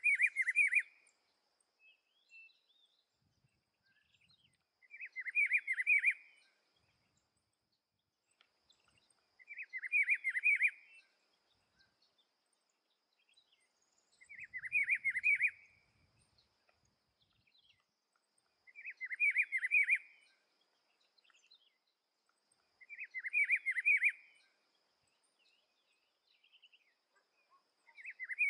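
Rufous-browed peppershrike (pitiguari) singing: a short warbled phrase about a second and a half long, repeated every four to five seconds. A faint steady high-pitched hiss runs underneath.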